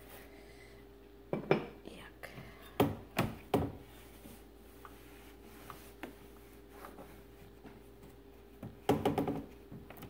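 Cloth and hand scrubbing and knocking against the metal vent grille and flap of a GE Spacemaker over-the-range microwave: a few sharp knocks and clatters, then a cluster of rubbing knocks near the end, over a steady faint hum.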